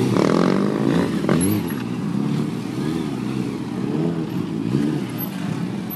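Motorcycle engine revving up and down over and over, its pitch rising and falling in quick repeated swells as the throttle is worked to hold a wheelie.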